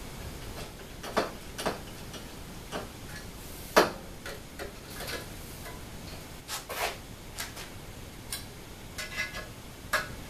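Irregular small metallic clicks and taps from a hex key and screws as an aluminium linear rail is fastened onto a T-slot extrusion. There is one sharper click about four seconds in.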